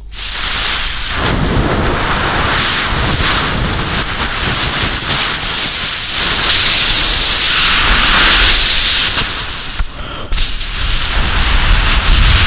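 Vocal mouth imitation of a fighter jet flying past: a loud, continuous rushing hiss that swells brighter in the middle, breaks off briefly about ten seconds in, then picks up again.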